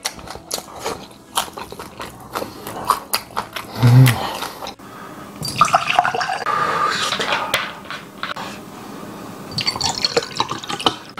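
Chewing at first, then liquor poured from a bottle into a tall glass, splashing and gurgling about halfway through. Near the end a second pour of beer from another bottle tops up the same glass.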